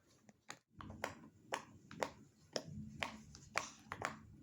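Bubbles of a silicone pop-it fidget toy being pressed one after another. Each gives a short soft pop, about two a second.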